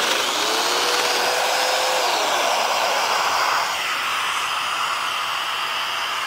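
Festool Domino joiner motor spinning up and plunge-cutting a mortise into the edge of a beech butcher block: its whine holds steady for about two seconds, then falls as the motor winds down. Under it, the steady rushing of the attached dust extraction, which eases a little near the middle and keeps running.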